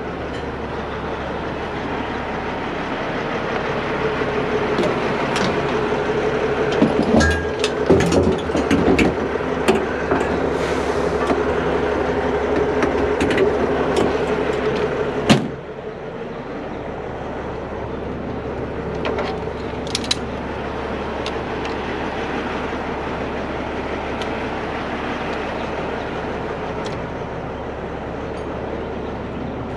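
Heavy truck diesel engine idling with a steady hum, with metal clanks of gear being handled about a quarter of the way in. A single sharp bang comes about halfway through, and the hum is a little quieter after it.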